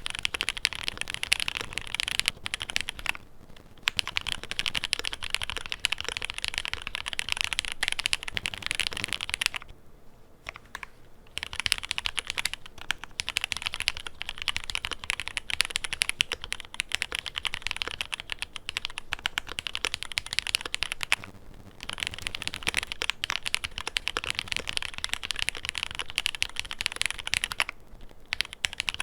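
Fast continuous typing on a QK100 mechanical keyboard with lubed Cherry MX Black linear switches and an FR4 plate, a dense run of keystroke clacks broken by brief pauses about four times.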